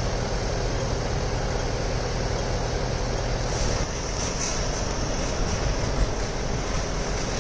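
Steady low hum of idling engines on a city street, from the truck-mounted boom lifts and traffic. From about four seconds in, a light rattle of small wheels rolling over the road, from a flat hand trolley being pulled.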